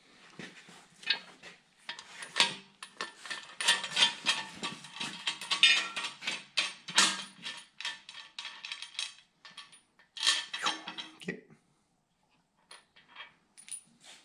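Metal clinking and scraping from a threaded-rod cam bearing installer being handled and turned with a wrench inside a bare 454 big-block Chevrolet engine block. The clatter stops for about a second near the end, then gives a few light clicks.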